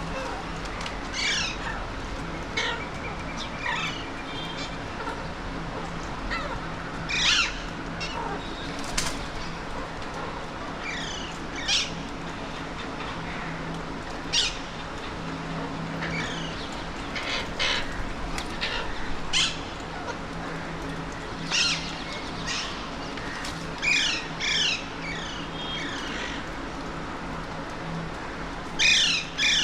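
Alexandrine parakeets giving short, harsh squawking calls, singly and in quick clusters every second or few, over a steady low background hum.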